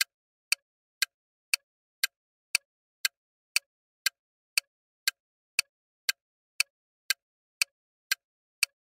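Countdown-timer ticking sound effect: short, sharp clock ticks, evenly spaced at about two a second, with silence between them.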